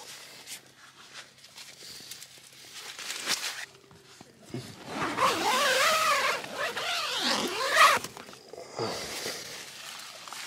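Rustling of clothing and tent fabric while shoes are pulled on inside a tent. About five seconds in comes a louder, long wavering call lasting about three seconds.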